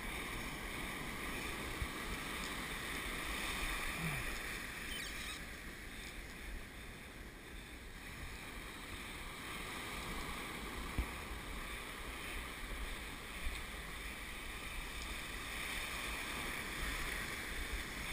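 Surf washing in and out around the feet, the noise of breaking and draining waves swelling and fading over several seconds. A single brief knock about two-thirds of the way through.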